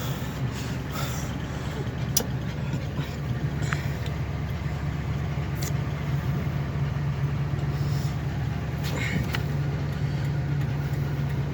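2004 Ford E350's engine idling steadily just after a hard start, with a few light clicks over the hum.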